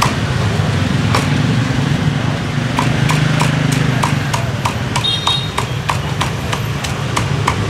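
Meat cleaver chopping roast pork on a thick wooden chopping block: a steady run of sharp knocks, about three a second, from around three seconds in. Under it runs a constant low rumble of street traffic.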